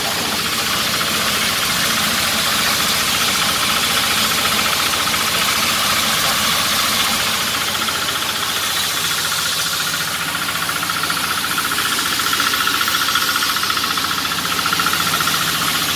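Coffee huller machine running steadily while hulling dry coffee, green beans pouring out of its perforated outlet chute. A steady higher whine grows stronger about ten seconds in.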